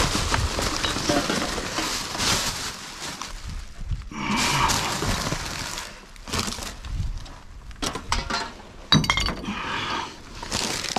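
Glass bottles clinking and knocking together as dumped rubbish is shifted about, with rustling bursts in between. A sharp, ringing glass clink comes about nine seconds in.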